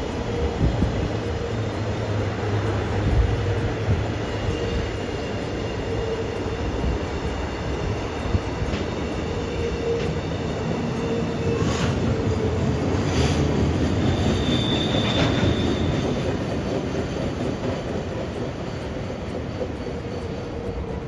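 Train running past with a steady rumble of wheels on rail. Thin, high wheel-squeal tones come and go from about four seconds to sixteen seconds in, with a few sharp clicks partway through.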